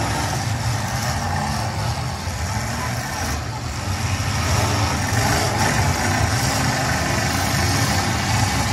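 Several demolition derby cars' engines running and revving together in a dirt arena, a steady low rumble with no single loud crash standing out.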